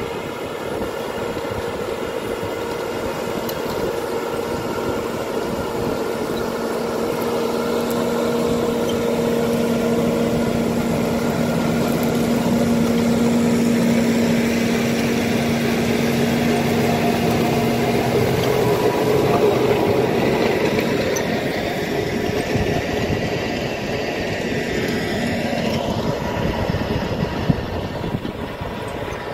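New Holland tractor working under load, driving a Gaspardo DMR 4000 power harrow through dry soil. A steady engine and drivetrain drone with a constant hum mixes with the rumble of the rotating tines breaking up the ground, and there is one sharp click near the end.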